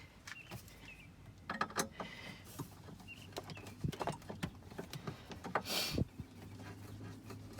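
Scattered clicks and knocks of plastic dash trim and tools being handled while a panel is fitted back on, with a short rustling scrape near the end.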